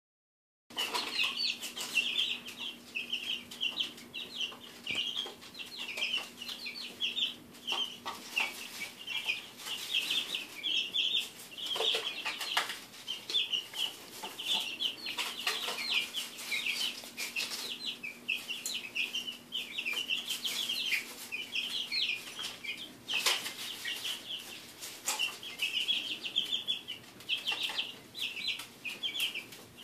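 A brood of three-week-old chicks cheeping all the time, many short high peeps overlapping one another. Among them are frequent short scratchy rustles of the wood-shavings bedding as the chicks dig and kick through it.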